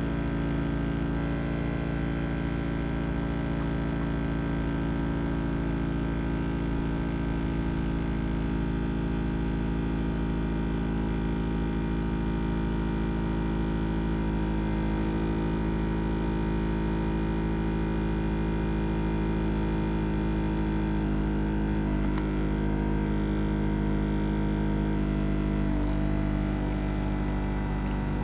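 A machine running steadily: an even, low hum made of several steady tones over a rumble, unchanging in level throughout.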